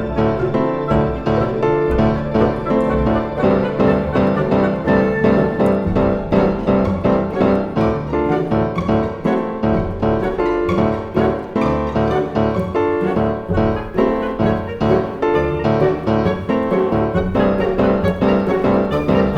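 Background music: instrumental piano with a steady pulse of notes.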